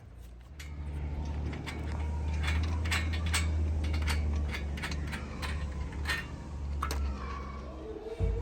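Scattered sharp clicks and taps of installation work on solar panels and their mounting, over a low rumble that fades out near the end.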